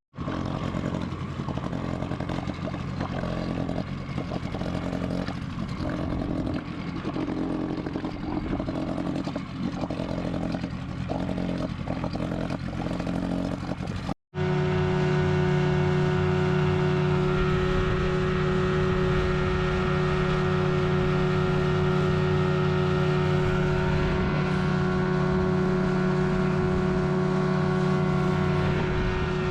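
Motorboat engine running under way. The first half is rougher and uneven; after a cut about halfway through, the engine holds a steady drone at a constant speed.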